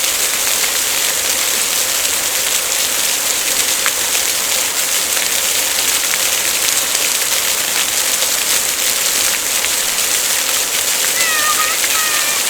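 Water fountain splashing steadily, a continuous rushing of falling water. Near the end a few short high chirps sound over it.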